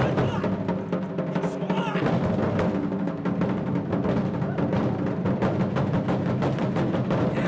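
Japanese taiko drums beaten in a fast, dense rhythm, with held pitched tones from other instruments over the drumming.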